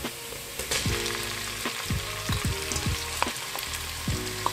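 Chopped garlic and ginger sizzling in hot oil in an aluminium pressure-cooker pot, with a wooden spoon scraping against the pot every half second or so as chopped red onion goes in.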